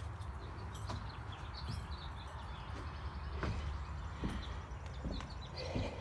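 Small birds chirping in quick, short notes over a steady low rumble of wind on the microphone, with a few soft footsteps on the wooden subfloor.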